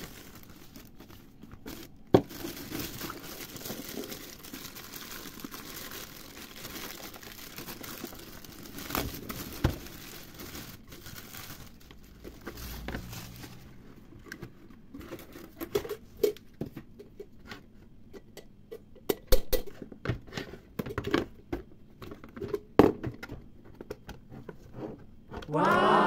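Crinkling and rustling of packaging, then a run of scattered clicks and knocks as things are handled.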